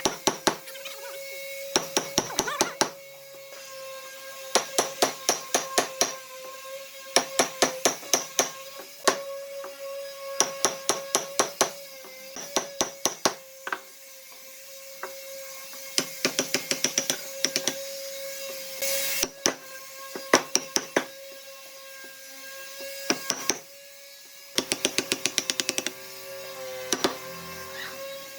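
Hammer blows on wood in quick runs of several strikes, the runs coming every second or two with short pauses. A steady tone sounds underneath throughout.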